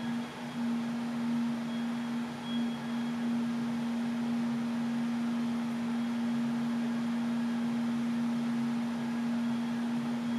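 Earthquake-simulator shake table running during a shaking test: a steady hum on one pitch over a hiss of machine noise.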